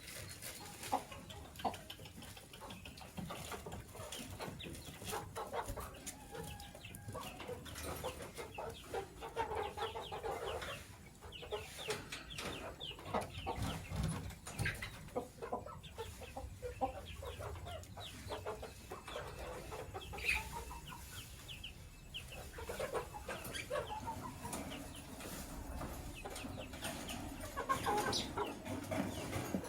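Lovebirds chirping and chattering in many short calls, with some lower calls mixed in among the high chirps.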